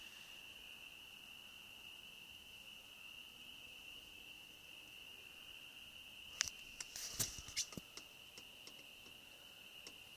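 Faint, steady high trill of night insects, a constant insect chorus. A few short sharp clicks or knocks come about six and a half to seven and a half seconds in.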